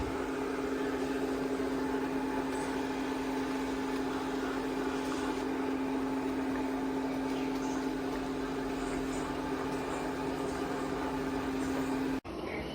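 Steady motor hum of an ECOVACS DEEBOT X9 PRO Omni robot vacuum running, one even pitched tone with overtones, which stops abruptly near the end.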